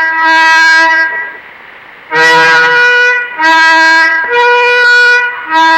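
Melodica playing a slow melody of held notes, about one a second, with short breaks between them and the pitch stepping up and down.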